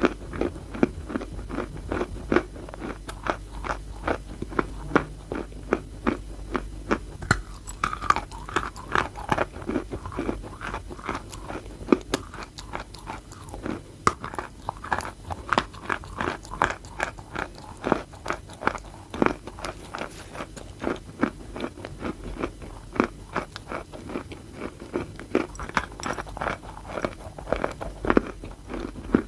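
Close-miked biting and chewing of chalk: rapid crunches, several a second, throughout.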